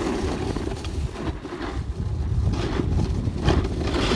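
Snowboard sliding and scraping over icy snow in a run of short scrapes, with wind rumbling on the microphone.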